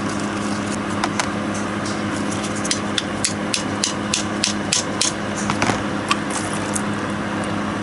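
A quick run of sharp metallic clicks from hand tools working on a removed dirt-bike carburetor during disassembly, about four a second in the middle and ending near the end, over a steady low hum.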